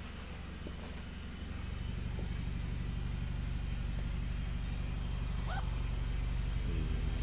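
A steady low mechanical hum, like a running engine or motor, growing louder about a second and a half in, with a few faint clicks.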